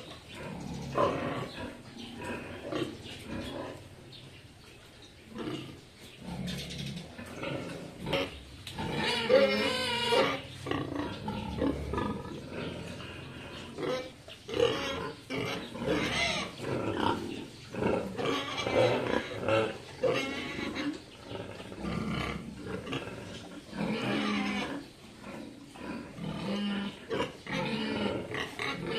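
Pigs grunting on and off, with a louder call about nine seconds in.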